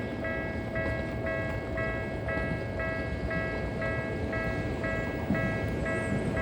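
Japanese railway level-crossing alarm ringing steadily at about two strikes a second. The rumble of an approaching train grows louder near the end.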